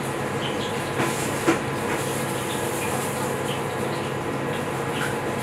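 Kitchen knife cutting on a plastic cutting board: light taps, with one sharper knock about a second and a half in, over a steady mechanical hum.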